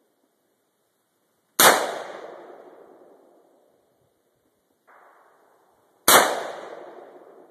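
Two shots from a self-built AR-15 carbine, about four and a half seconds apart, each a sharp crack followed by an echoing tail that fades over about a second and a half. A much fainter bang falls between them.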